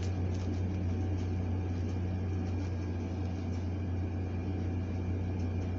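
A steady low hum with faint noise above it, unchanging throughout.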